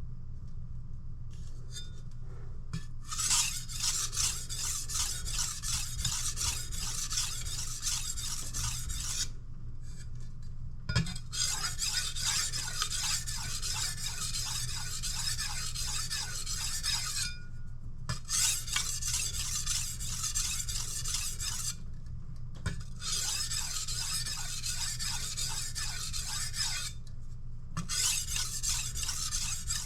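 Kitchen knife blade being sharpened on a sharpening stone: runs of quick back-and-forth rasping strokes, broken by short pauses about five times, as the edge is worked along the stone.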